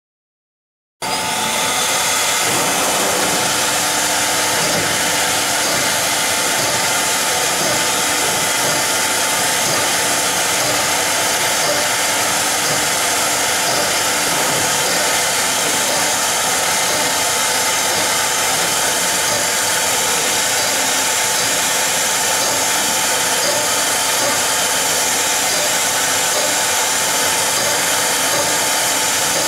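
CNC nesting router (YM4 1325, four-spindle tool-change) cutting particleboard, starting about a second in: a steady whine from the spindle and cutter over the rushing of its dust extraction, loud and unbroken.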